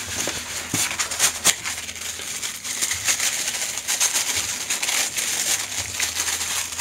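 Clear plastic packing wrap crinkling and crackling as a hand pulls it out of a polystyrene packing tray, a dense run of sharp crackles.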